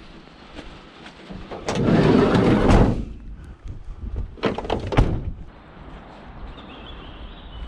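Scrap being handled at a van: a loud rumbling scrape about two seconds in, then two sharp knocks about a second and a half later.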